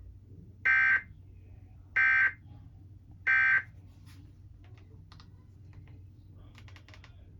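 Emergency Alert System end-of-message data tones: three short, identical digital bursts of buzzing data about a second and a half apart, signalling the end of the alert. A few faint clicks follow.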